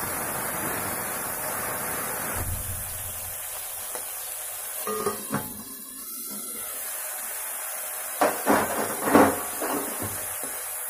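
Green peas sizzling and hissing in hot oil in a kadhai just after a splash of water goes in, for the first couple of seconds. Then metal knocks and clinks from the pan's steel cover and the stirring ladle, a few around the middle and a cluster near the end.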